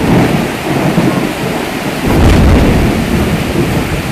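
Heavy tropical rain pouring down, with a loud deep rumble that swells about two seconds in.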